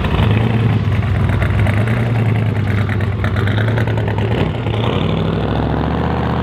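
Twin-turbo engine of a lowered old pickup truck running at low revs as it drives past, a steady deep note. About five seconds in the pitch changes and begins to climb as it pulls away.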